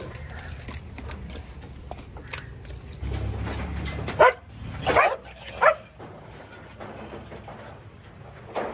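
Stray dog barking: three short barks in quick succession about four to six seconds in.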